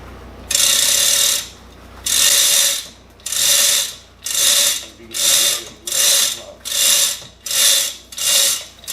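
A hand ratchet worked back and forth in about ten strokes, each a burst of rapid pawl clicks, the strokes getting shorter and quicker toward the end.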